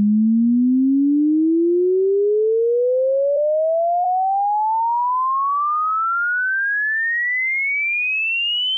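A single pure electronic tone sweeping smoothly and steadily upward in pitch, from a low hum to a high whistle, at an even loudness.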